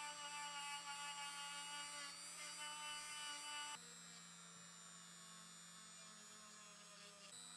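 Faint, steady electrical hum with several high whining tones; the mix of tones changes abruptly about halfway through and again near the end.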